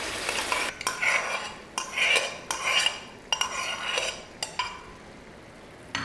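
Steel ladle scraping and knocking against the inside of a pressure cooker and a pan as cooked urad dal is tipped into frying masala and stirred in, with a soft sizzle as the dal lands. The knocks come about every half second to a second.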